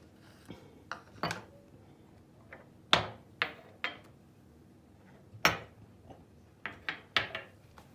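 Drinking glasses and small ceramic bowls being picked up and set down on a granite countertop: a series of short, separate knocks and clinks.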